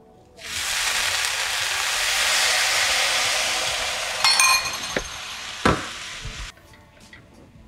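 Dried anchovies sizzling loudly in a hot oiled pan as soy sauce hits it, a steady hiss that starts abruptly and cuts off suddenly near the end. A ringing metallic clink about four seconds in and a couple of short knocks sound over the sizzle.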